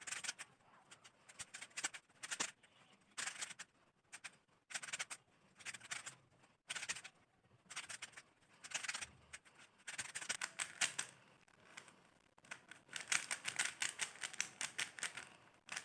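Plastic Rubik's cube being turned rapidly during a timed solve: bursts of fast clacking clicks from the layers, broken by short pauses.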